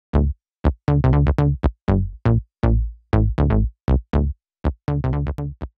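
Electronic intro music: a string of short, punchy pitched synth and drum-machine hits in an uneven rhythm, each dying away quickly with silent gaps between them.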